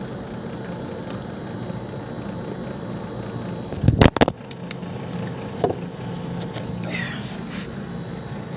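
A mobile phone falling and clattering onto a hard surface, a loud short cluster of knocks about halfway through, with a few faint knocks after it over a steady low background hum.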